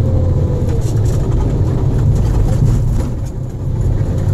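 Semi truck's diesel engine and road noise heard inside the cab while driving: a steady low rumble that dips briefly about three seconds in.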